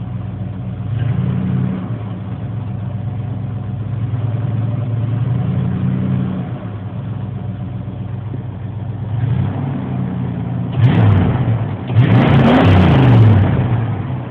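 1980 Ford F-100's 302 small-block V8 with a two-barrel carburetor idling, heard from inside the cab, and revved with the gas pedal: a few gentle blips first, then two quicker, louder revs near the end that rise and fall.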